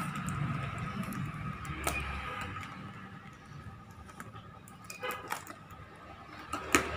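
A cardboard parcel being cut and torn open with scissors: a few scattered snips, clicks and rustles of tape and wrapping.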